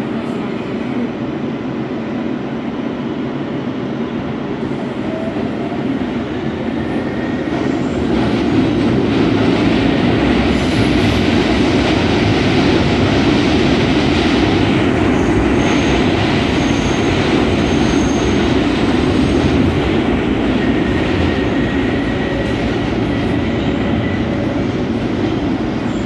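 R143 subway train running, heard from inside the car: a steady rumble of wheels on rails that grows louder about eight seconds in as the train enters the tunnel. Faint high squeals of the wheels come now and then in the second half.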